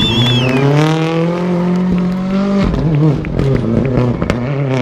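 Rally car engine revving hard as the car accelerates down the stage and past. The pitch climbs for about two and a half seconds, drops sharply, then climbs again.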